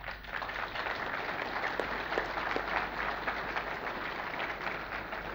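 Audience applauding: many hands clapping in a dense patter that builds quickly and then slowly dies down.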